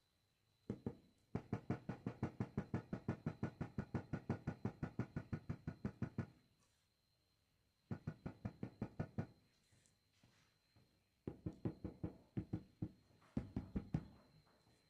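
Rapid knocking on ceramic floor tiles, about six taps a second, in several runs: a long one of about five seconds, then shorter bursts with pauses between.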